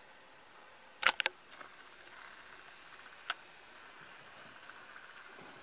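Camera-handling clicks: a quick cluster of three sharp clicks about a second in and a single click a couple of seconds later, over quiet room tone with a faint steady high tone.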